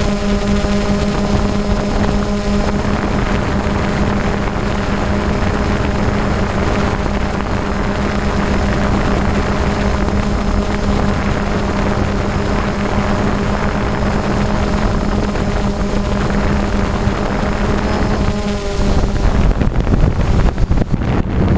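DJI Phantom quadcopter's motors and propellers humming steadily, heard from its onboard camera, with wind rushing over the microphone. Near the end the hum drops away and louder, gusty wind noise takes over.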